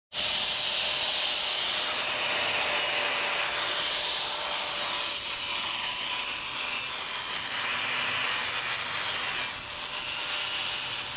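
Corded angle grinder cutting along a crack in a concrete driveway, running steadily with a high motor whine over gritty grinding. The wheel is chasing the crack, cutting it open to take a filler.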